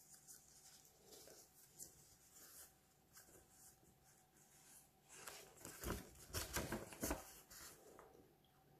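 Paper rustling and crinkling as a folded card and a printed sheet are handled and opened out, with a louder flurry of crinkles a little past halfway.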